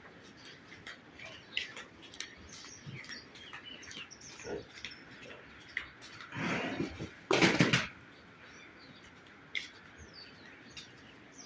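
Scattered short bird chirps over a faint steady outdoor background. A loud, rough noisy burst lasts about a second and a half, from about six seconds in.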